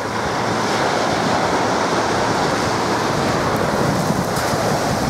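Steady rush of surf washing onto the beach, with wind buffeting the microphone.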